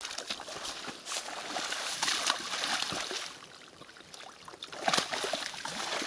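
A horse shifting and struggling in a shallow muddy puddle, sloshing and splashing water and mud. The splashing comes in bouts, with a quieter spell in the middle and more splashing near the end as it heaves itself up.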